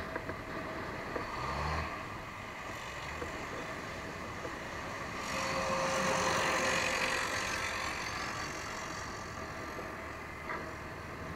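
Suzuki GZ150 single-cylinder motorcycle under way, its engine running under a steady rush of wind and road noise. The engine note rises briefly about a second and a half in. A louder rush of noise swells for a few seconds in the middle.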